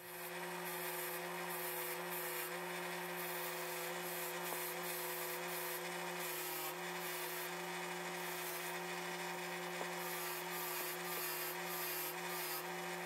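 6-inch BenchTop bench grinder running with a wire wheel, its motor giving a steady hum, while steel screwdriver bit tips are held against the spinning wire brush to scrub the rust off them.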